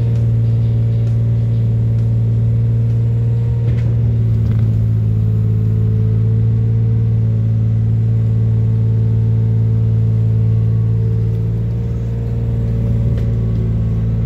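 Amphibious excavator's diesel engine running steadily with a deep, even drone, with an occasional faint knock.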